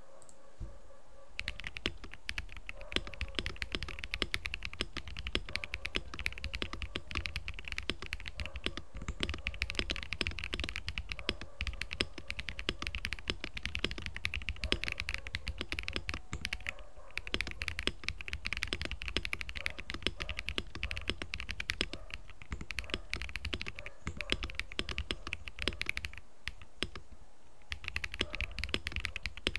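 Typing on a Cheap60 mechanical keyboard with Glorious Panda tactile switches, ePBT keycaps and PE-foam and Tempest mods: a quick, steady run of keystrokes starting about a second in, with brief pauses now and then.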